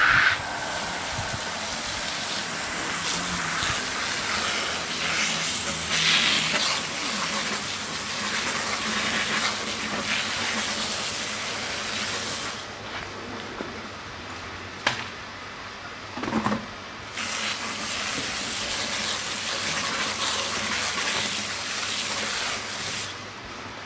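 Water spraying from a hose onto an alloy wheel and tyre, rinsing off the baking soda and lemon juice cleaner. The steady spray stops for a few seconds about halfway through and stops again just before the end.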